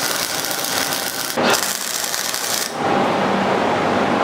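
Welding arc from a Harbor Freight welder crackling and hissing as it lays a bead on steel, with a short break about a second and a half in. The arc stops a little over two and a half seconds in, leaving a steady hum.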